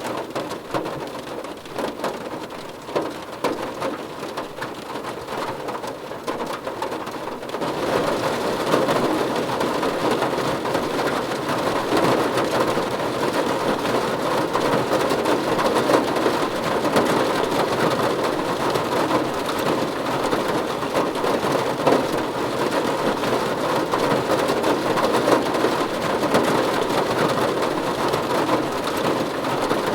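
Rain falling on a car's roof and windows, heard from inside the car. It grows heavier and louder about seven seconds in, then keeps up steadily.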